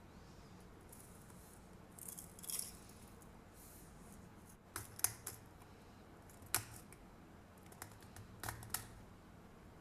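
Himalayan pink rock salt crystals being ground through the twist grinder built into the bottle's cap: faint scattered crunches and clicks in short bursts, the sharpest about five and six and a half seconds in.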